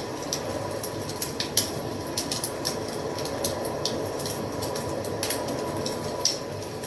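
Wood fire burning with a steady rushing sound, broken by irregular sharp crackles and pops of burning wood, a few of them louder snaps.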